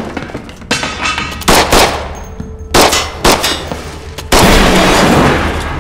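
Film fight sound effects: a series of loud crashes and hits, about five in the first three and a half seconds, then a longer crash lasting over a second, starting a little past four seconds in.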